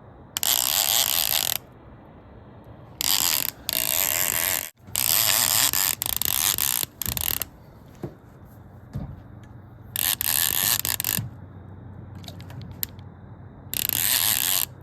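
Fishing reel drag buzzing in about seven loud, ratcheting bursts of a second or less as a hooked fish pulls line off the spool.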